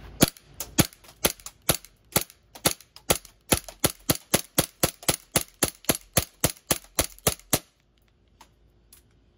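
Glock 19X blowback BB pistol fired semi-automatically in rapid succession, about three or four sharp shots a second, BBs striking the phone's screen. The firing stops about a second and a half before the end.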